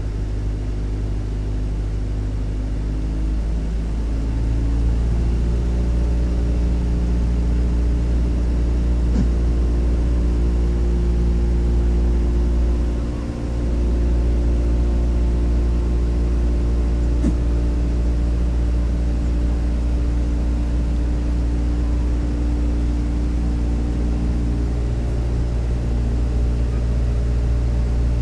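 Steady engine-like drone with a deep rumble and several held tones. The tones shift a little about four seconds in, and the drone dips briefly near the middle.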